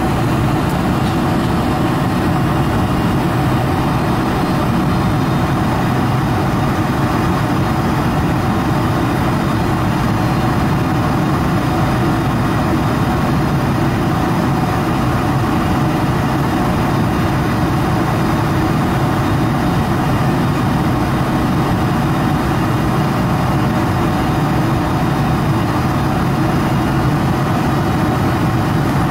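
Cabin noise inside a Boeing 747-400 on final approach: a steady rush of airflow over the wing and the drone of its GE CF6-80C2 engines at approach power.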